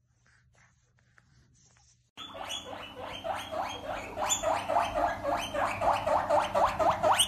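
A pug puppy chews faintly on a cloth bundle. About two seconds in, a guinea pig starts squealing, a rapid run of short rising squeaks about four or five a second, growing louder.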